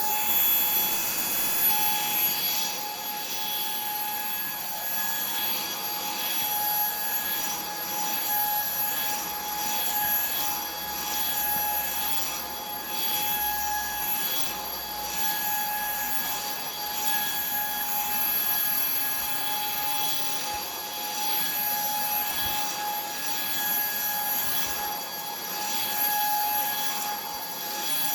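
Puweike cordless stick vacuum running with a steady high-pitched motor whine, its suction hiss swelling and fading every couple of seconds as it works the floor.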